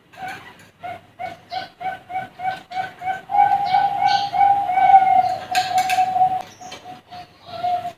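Young Bangkok-line zebra doves (perkutut) cooing: a string of short, quick coos on one pitch, drawn out into longer held coos midway, then short coos again near the end.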